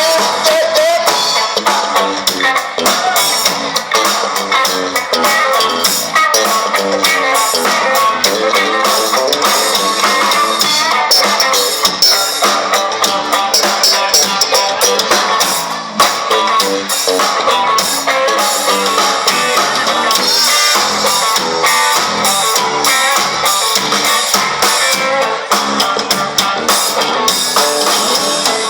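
A band playing a song with guitar and drum kit, steady and dense throughout, with little bass.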